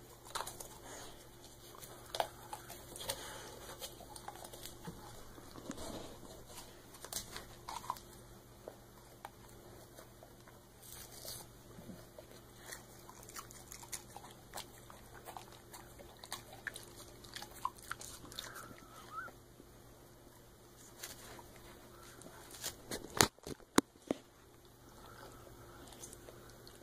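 Dog chewing and tearing apart a mesh bath sponge: irregular crackling, crunching bites and ripping of the mesh, with a few loud sharp snaps late on.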